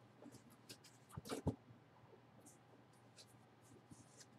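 Faint handling noises: scattered soft clicks and scrapes, with a couple of light knocks about a second and a half in, over a low steady hum.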